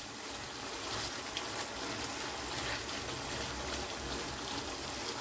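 Chicken pieces and capsicum simmering in their own released juices in a non-stick pan on a gas flame: a steady sizzle and bubble of the watery liquid.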